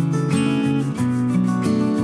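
Background music: a guitar strummed and plucked in a steady rhythm.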